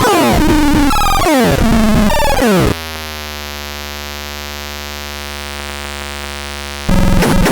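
ANERDAN C203M electronic sound unit playing its synthesized tones: rapid repeated falling pitch sweeps, then a steady held buzz from about three seconds in, switching to a busier warbling pattern near the end.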